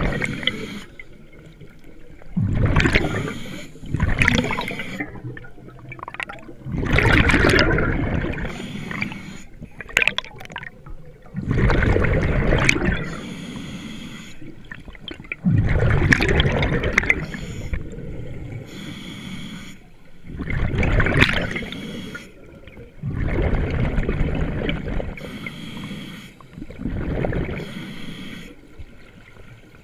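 A diver breathing underwater through a regulator: a hiss on each breath in and a burst of gurgling exhaled bubbles on each breath out, repeating about every three to four seconds.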